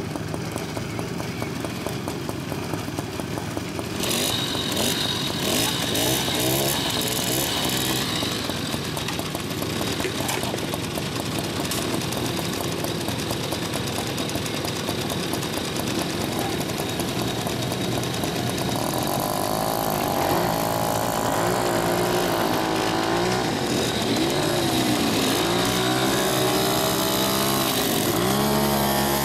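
Several vintage 50cc two-stroke moped engines running as riders pull away. Engine pitch rises and falls with the throttle, most clearly in the last third as one engine revs up and down close by.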